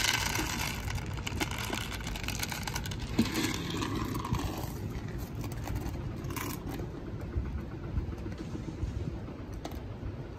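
Dog eating milk-soaked dry kibble from a plastic tub: scattered small crunches and clicks over a steady low rumble.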